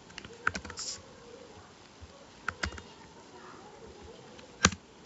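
A few scattered clicks of a computer keyboard and mouse, with a small cluster in the first second, two more near the middle and the loudest about four and a half seconds in.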